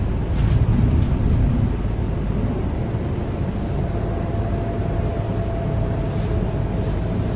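Scania K230UB Euro V city bus under way, heard from inside the passenger cabin: steady low diesel engine and road rumble, a little louder in the first second or two. A faint steady whine joins about halfway through.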